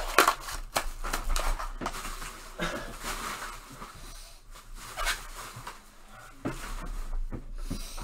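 Handling noises from cards and packaging: irregular light taps and clicks with short bursts of rustling, a few strokes a second at most.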